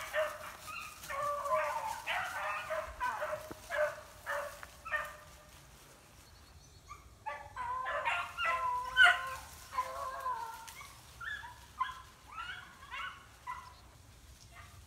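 Dogs barking and yelping in quick runs of short calls, with a lull about six seconds in. The calls fit hunting dogs running in cover.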